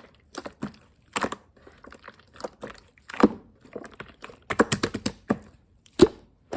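Clear slime being pressed and stretched by hand, making irregular sharp clicks and pops, the loudest about three seconds in and again near the end.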